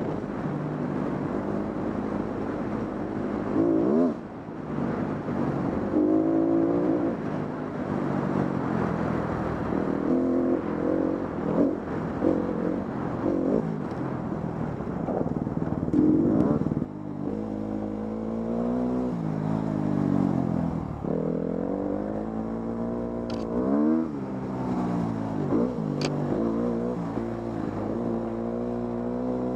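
Dirt bike engine running under load on a trail ride, its pitch rising and falling over and over as the throttle is opened and rolled off, with a few short dips.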